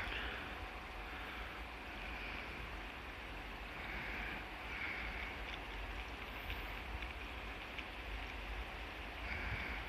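Wind rumbling on the microphone over a steady outdoor hiss.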